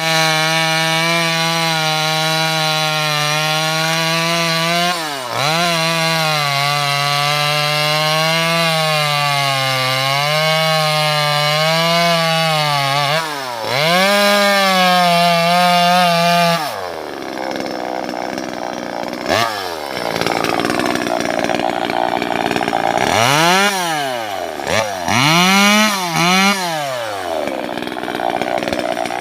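Two-stroke top-handle chainsaw running at high revs, cutting teak wood, its pitch wavering slightly under load with brief dips twice. Past the middle the note drops and turns rougher. Near the end the revs fall and rise several times in quick succession as the throttle is blipped.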